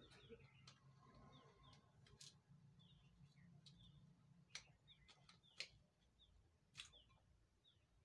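Near silence, with a few faint sharp clicks and taps of metal parts as an angle grinder's armature is handled at its housing, and birds chirping faintly over and over in the background.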